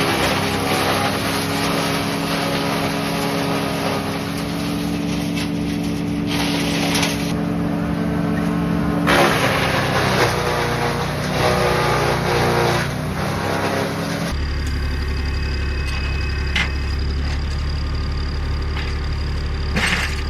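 Small engine-driven wood chipper running with a steady engine note, then a rougher, noisier stretch as material goes through it. About fourteen seconds in, this cuts abruptly to a different, steady low hum with a few sharp knocks.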